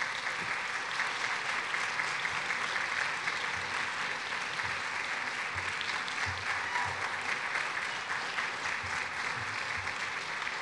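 Sustained applause from a banquet-hall audience, many hands clapping in a steady dense patter.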